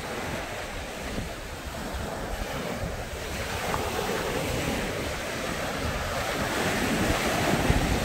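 Sea surf breaking and washing up a sandy beach, a steady rush that swells louder in the second half, with wind buffeting the microphone in low thumps near the end.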